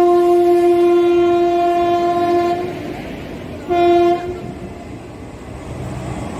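Indian Railways electric locomotive's horn: one long blast of nearly three seconds, then a short blast about four seconds in. Under it, the passenger coaches rumble past on the rails.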